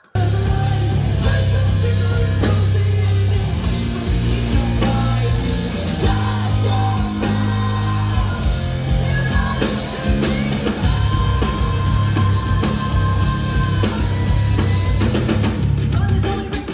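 Live hard-rock band playing: heavy distorted guitars, bass and drum kit with a sung vocal line.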